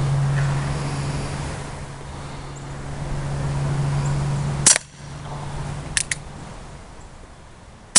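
Umarex Colt Single Action Army CO2 BB revolver firing one sharp shot about halfway in, followed a second later by two quick clicks and another shot at the very end. A steady low hum runs underneath for the first half.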